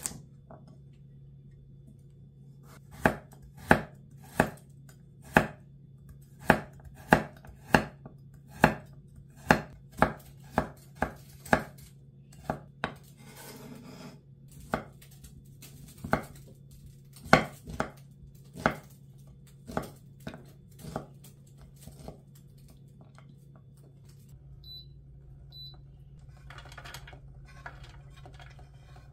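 Kitchen knife chopping carrot into matchsticks on a wooden cutting board: sharp knocks about one or two a second, stopping a little over two-thirds of the way through. After that come soft handling rustles and two short high beeps, over a low steady hum.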